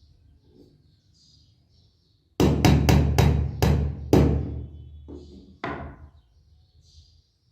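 Hammer blows: a quick run of about seven sharp strikes, then a single strike a second and a half later.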